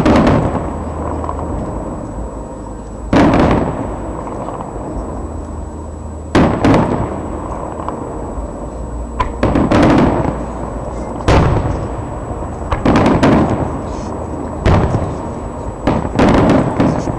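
Aerial firework shells bursting overhead one after another: about nine heavy bangs, one every second or two, each followed by a rolling echo.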